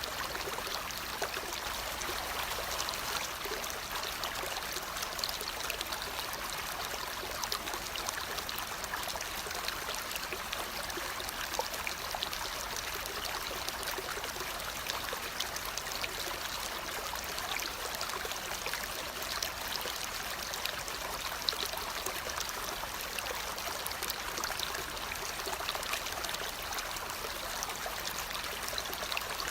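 Steady running water like a stream, an even trickling rush with small ticks scattered through it.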